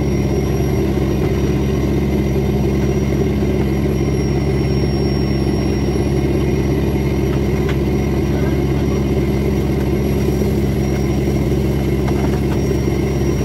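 Fishing boat's inboard engine running steadily under way, a constant low drone.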